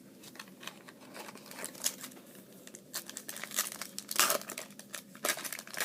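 Foil wrapper of a baseball card pack being torn open and crinkled in the hands: a run of sharp crackles that grows louder after about three seconds.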